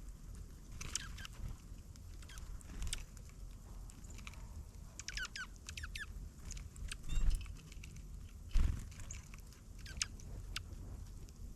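Small wild birds chirping and calling, with short high notes scattered throughout and a quick run of falling notes about halfway. Low rumble underneath, and two dull thumps a little after the middle.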